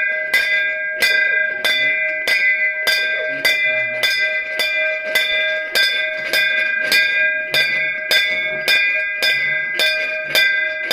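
Temple bell rung over and over, about two to three strikes a second, each strike ringing on into the next so the tone never dies away.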